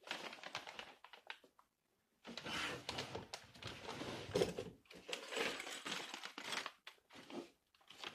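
Clear plastic parts bags crinkling and a cardboard box being handled as hands rummage for parts, in irregular crackly bursts with short pauses about two seconds in and again near the end.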